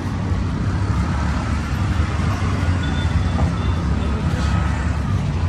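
Steady low engine rumble of a motor running close by.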